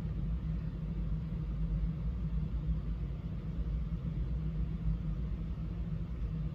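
A steady low rumble with a constant hum, unchanging throughout.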